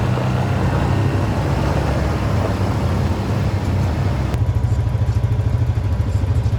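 ATV engine running with a loud, steady low drone. About four seconds in, the higher rushing noise drops away and the engine note settles into an even, rapid pulse.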